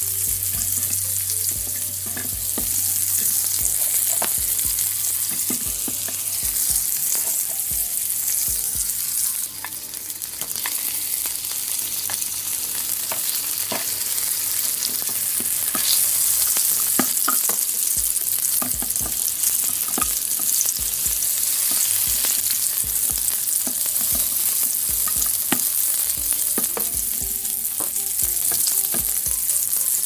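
Sizzling sound effect of meat frying on a grill: a steady hiss with scattered crackles.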